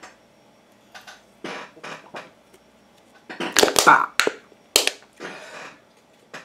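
Aluminium Five Alive drink can being handled and squeezed close to the microphone: a run of short crinkles and knocks, loudest about three and a half to four seconds in.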